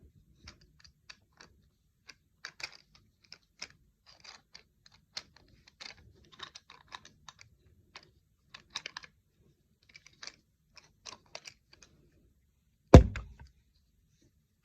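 Light, irregular clicks and taps of small camera-mount parts being handled, a phone holder and ball-head clamp, with one louder knock about 13 seconds in.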